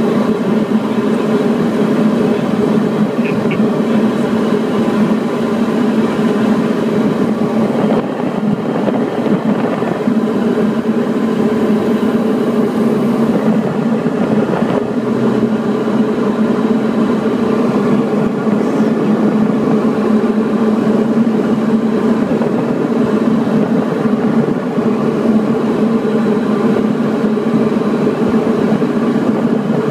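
Diamond DA40 light aircraft's piston engine and propeller running with a loud, steady drone, heard inside the cockpit on final approach to landing.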